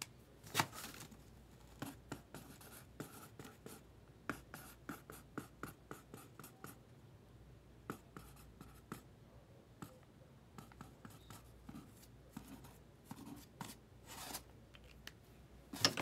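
Faint, scattered light clicks and scratches of hands handling small objects, with a few sharper knocks about half a second in and near the end.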